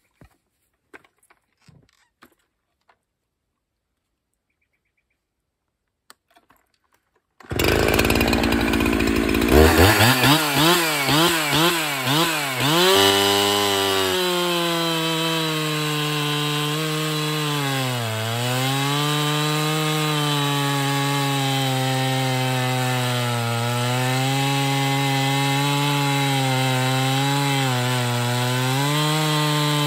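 Near silence for about seven seconds, then a Husqvarna 365 Special two-stroke chainsaw bursts into sound. It is revved up and down several times, then held near full throttle, its pitch sagging and recovering as it works in a cut with an Oregon square-ground chain.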